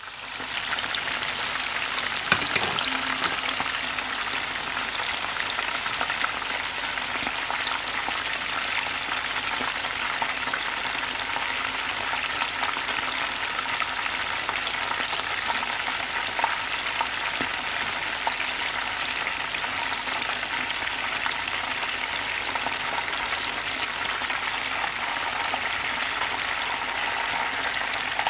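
Masala-coated fish fillets frying in hot oil in a pan: a steady, dense crackling sizzle. One short knock about two seconds in.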